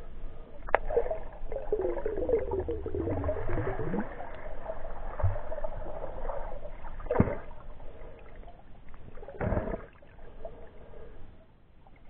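Water moving and bubbling around a camera held underwater, with three sharp knocks: about a second in, about seven seconds in, and near ten seconds.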